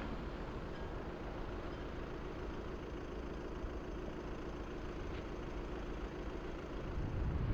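A car engine running steadily, a low, even drone that holds without revving.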